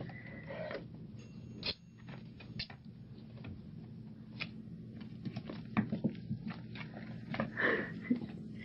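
Scattered light taps and clicks from a cat rolling and playing on a wooden floor, coming thicker in the second half, over a low steady hum.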